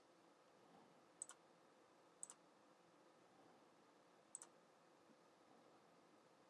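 Three faint computer mouse clicks against near silence, each a quick double tick: about a second in, again a second later, and again about two seconds after that.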